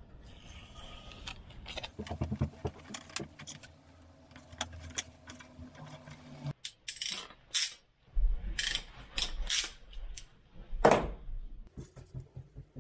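Small metal parts and hand tools clicking and clinking as they are handled during assembly of a small metal switch housing. The clicks are irregular, with a few sharper strikes near the end.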